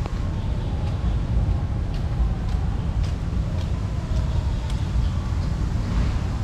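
Steady low rumble of city traffic, with a few faint light ticks on top.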